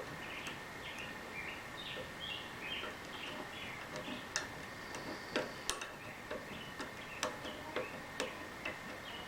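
Irregular sharp metallic clicks, starting about four seconds in, as pliers rock Allen wrenches wedged in the flutes of a broken tap back and forth to work it loose. Faint short chirps come before them.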